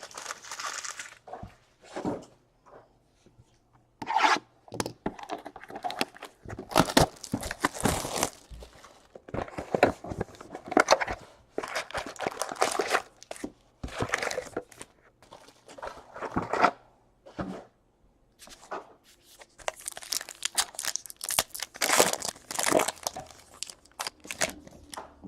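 Foil trading-card pack wrappers being torn open and crinkled, with the cards handled in between. The rips and rustles come in irregular short runs.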